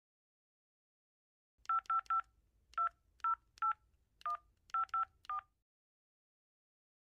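Mobile phone keypad dialing tones: about ten short two-note touch-tone beeps in quick, uneven succession, starting a second and a half in, as a phone number is keyed in.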